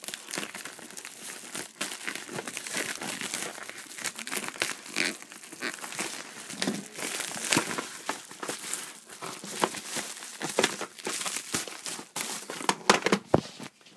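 A shipping package being opened and handled by hand, its packaging crinkling and crumpling in quick, irregular bursts.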